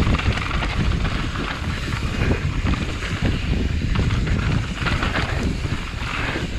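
Wind rushing over the microphone and a mountain bike's tyres rolling fast over rough dirt trail, with a constant low rumble full of small knocks as the bike rattles over bumps.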